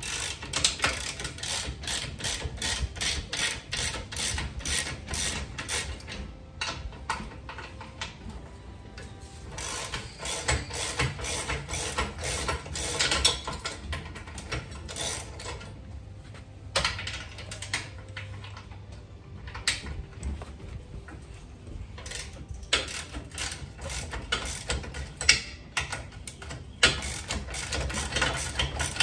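Ratchet spanner clicking in quick runs with short pauses, working the bolts of a trailer jockey wheel clamp loose.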